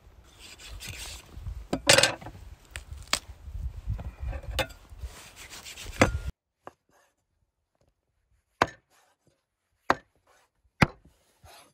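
Knife and cleaver chopping raw lamb on a wooden cutting board: single sharp knocks about a second or so apart, the loudest about two seconds in. A low rumble lies under the first half.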